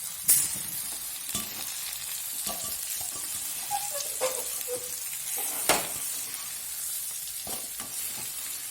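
Okra pieces frying in hot oil in a pan with a steady sizzle, stirred with a spatula that scrapes and knocks against the pan several times. The loudest knocks come a fraction of a second in and near six seconds. The okra has fried until its sliminess is gone.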